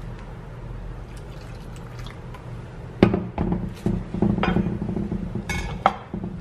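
Metal fork stirring jackfruit pieces through wet flour batter in a ceramic bowl, clinking and scraping against the bowl in quick repeated strokes from about three seconds in, with one brighter ring near the end.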